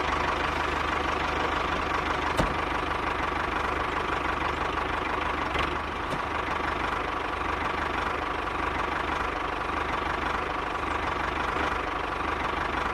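Miniature DIY model tractor running: a steady, engine-like chugging drone with a thin steady whine.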